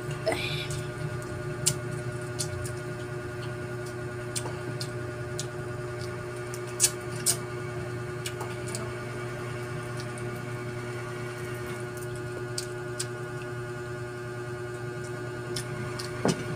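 Eating shrimp and mussels by hand: scattered sharp clicks and cracks of shells being peeled and picked apart, over a steady low hum.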